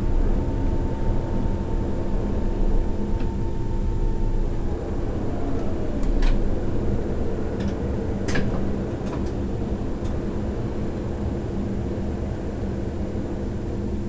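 Berlin S-Bahn train's drive whining down in pitch as the train slows to a stop, over a steady mechanical rumble and hum. Then a freight train of car-transporter wagons rolls past on the next track, with a few sharp metallic clicks.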